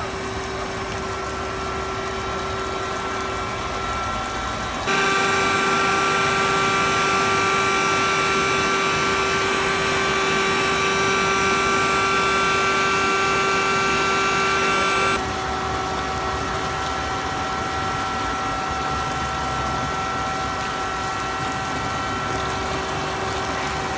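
Concrete-cutting machinery running steadily, a hiss with several constant whining tones. It jumps abruptly louder and brighter about five seconds in and drops back about ten seconds later.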